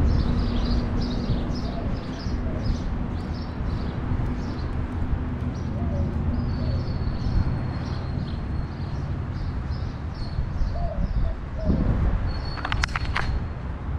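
Birds chirping in rapid repeated calls over the steady low rumble of street traffic, with a brief cluster of sharp clicks near the end.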